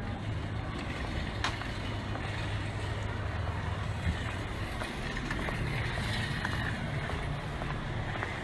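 Steady low rumble of vehicle traffic and engines, with a couple of faint clicks.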